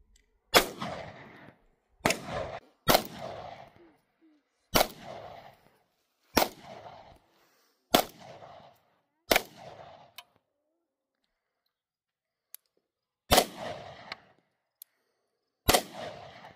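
Handgun fired in single shots, nine in all, one to two seconds apart with a longer pause about two thirds of the way through; each sharp crack trails off in a short echo.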